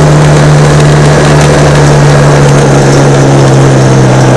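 A motor vehicle moving at a steady speed: a constant engine hum under rushing road and wind noise, very loud on the microphone.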